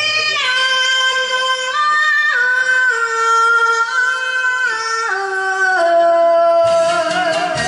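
A woman singing a kayō rōkyoku ballad line in drawn-out enka style, holding long notes that step from one pitch to the next. The backing music all but drops away under her voice and comes back in near the end.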